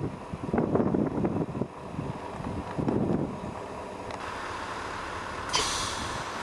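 Wind buffeting the camcorder microphone in irregular gusts, with a brief sharp hiss about five and a half seconds in.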